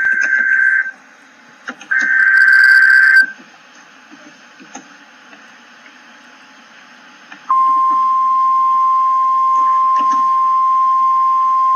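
Emergency Alert System data header: two short buzzy digital bursts, the second about two seconds in. Then, about seven and a half seconds in, the steady 1050 Hz NOAA Weather Radio warning alarm tone starts and holds.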